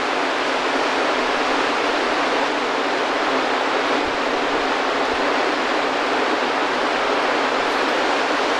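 Whitewater mountain river rushing over rocks in a steady, unbroken rush of water.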